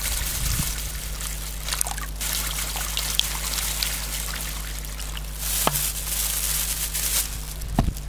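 Water pouring in a steady trickle from a plastic bottle into a thin plastic bag.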